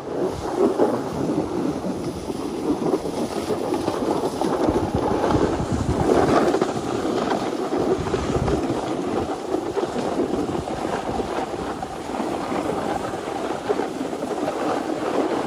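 A snowboard sliding and carving down a packed-snow slope: a continuous scraping rush of the board on the snow, mixed with wind on the microphone, a little louder about six seconds in.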